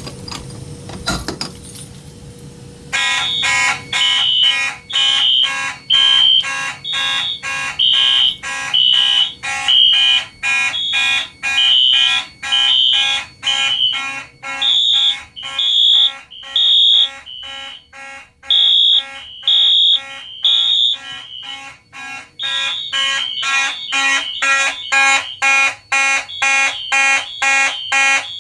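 Fire alarm horns going into alarm about three seconds in, after a few clicks, then sounding loudly together. The Simplex horns pulse in march time, about two pulses a second, while the other horns sound code 3: three pulses and a pause.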